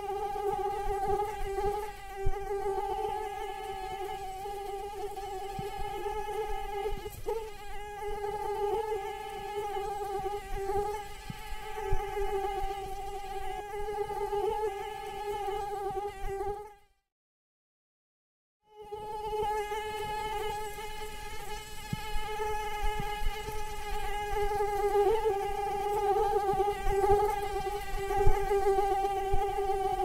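Mosquito in flight, its wingbeat making a steady whine with a slightly wavering pitch. It cuts out to complete silence for about two seconds a little past halfway, then resumes.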